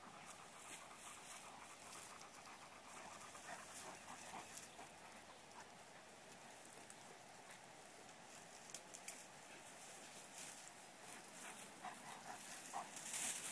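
A large dog panting faintly.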